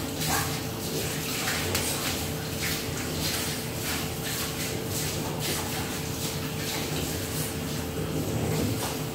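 Towel rubbing briskly over a wet dog's coat, a rustling scrub in quick repeated strokes, with a steady faint hum underneath.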